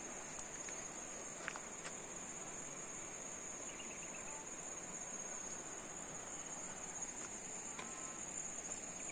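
Insects in the grass making a steady, high-pitched, unbroken drone, over a soft background hiss.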